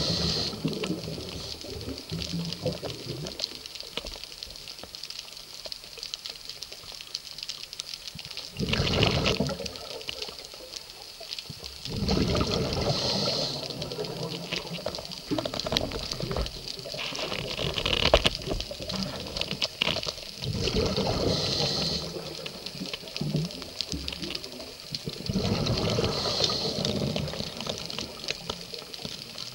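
Underwater recording of a scuba diver breathing through a regulator: gurgling bursts of exhaled bubbles every few seconds over a steady hiss.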